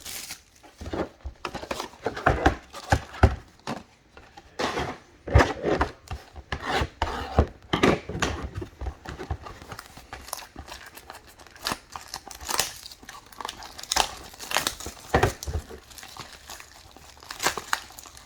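Plastic trading card pack wrappers being torn open and crinkled by hand, an irregular run of crackling and rustling.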